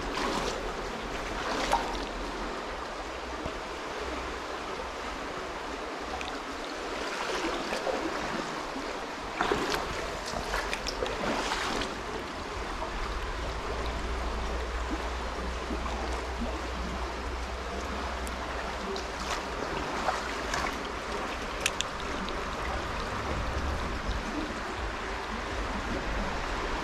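Steady rush of river water flowing over a shallow, rippling stretch. A few brief knocks and clicks come through now and then.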